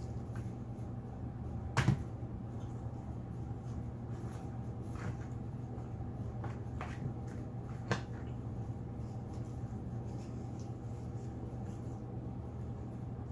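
Quiet eating and food-handling noises over a steady low hum: a sharp tap about two seconds in, another around eight seconds, and a few fainter clicks between them.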